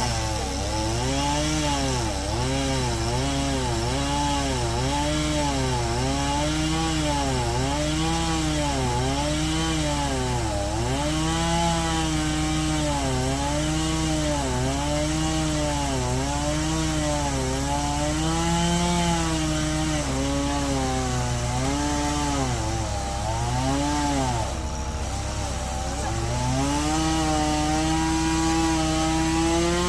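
Chainsaw cutting through a fallen tree, its engine note dipping under load and picking back up again and again as the chain bites.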